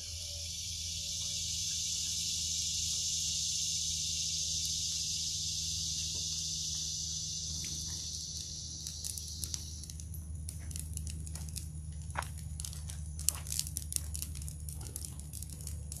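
Diesel pouring from a plastic jerry can onto a brush pile, a steady splashing hiss, stopping about ten seconds in. Then the burning brush crackles and pops irregularly.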